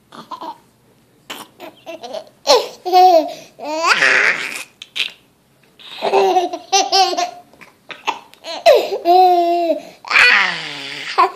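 Toddler laughing hard in a string of high-pitched bursts with short pauses between them, as an adult tickles his cheek.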